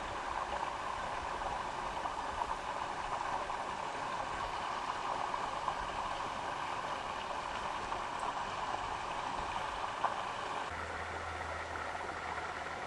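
Steady rushing of a running brook. About eleven seconds in the rushing turns softer and a low steady hum comes in beneath it.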